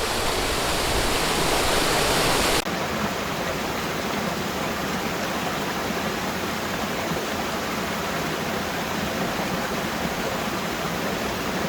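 Waterfall rushing steadily, a dense even roar of falling water. The tone changes abruptly and slightly about two and a half seconds in, with less hiss at the top, and then carries on unchanged.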